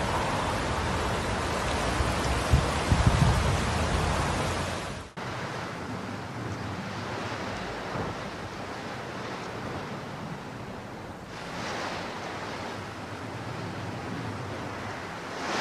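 Floodwater rushing down a swollen, muddy river in spate, a dense steady rush of water with wind buffeting the microphone. About five seconds in it cuts off abruptly to a quieter, even rush of noise that swells twice, the second time near the end.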